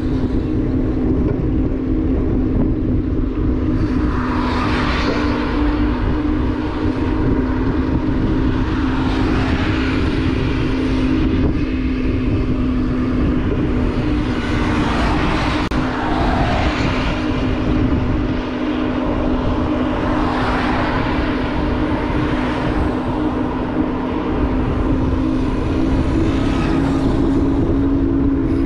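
Motorbike engine running at a steady cruising speed, with a constant hum and a low rumble of wind on the microphone. A higher rushing hiss swells and fades every few seconds.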